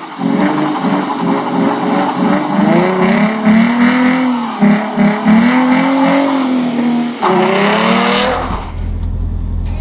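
Maserati Quattroporte exhaust as the engine is revved over and over, the pitch rising and falling with each blip and a sharper rev about seven seconds in. Near the end the revs fall away and a deep low rumble takes over.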